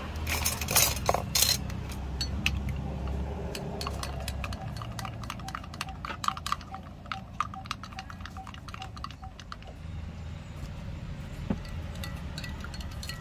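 Clinking and tapping of cups and utensils at a street drinks stall: a few loud sharp strikes in the first second or so, then a quick run of small clicks through the middle, over a steady low hum.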